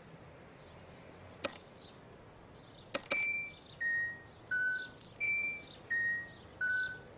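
Pedestrian crossing signal sounding the walk tone: a falling three-note electronic chime, played twice, signalling that it is safe to cross the street. A short click comes about a second and a half in and another just before the tones start.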